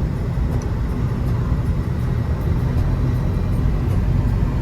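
Steady low rumble of a car's tyres and engine, heard from inside the moving car.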